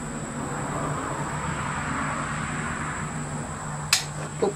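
Sword set down on a workbench: a sharp click near the end, then a small knock, over a steady hum and a swell of noise that rises and fades about halfway.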